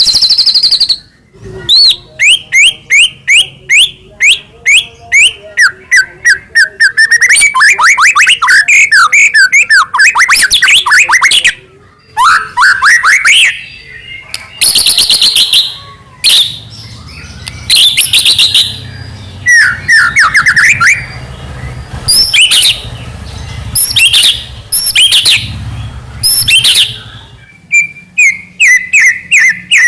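White-rumped shama (murai batu) singing loudly and continuously in full 'gacor' song. Its song is fast runs of repeated chirps, rising and falling whistled sweeps and trills, in varied phrases with short pauses.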